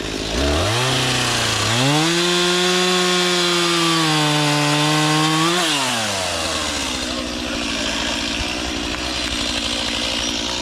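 Chainsaw revving up hard, held at a high, steady pitch for about four seconds, then dropping back to a rough idle.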